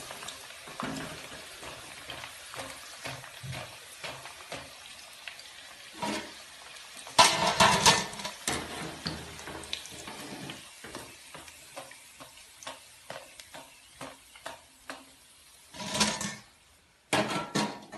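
Chicken pakoda pieces deep-frying in hot oil in a steel kadai, sizzling with many scattered crackling pops, while a wire spider strainer works in the pan. A louder burst of sizzling and clatter comes about seven seconds in and again near the end, and the sizzle thins out in the second half as the pieces are lifted from the oil.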